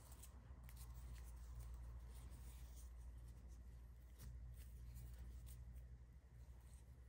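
Faint rustling and scratching of stiff paper yarn being drawn through crocheted stitches, with a few soft ticks, over a low steady hum.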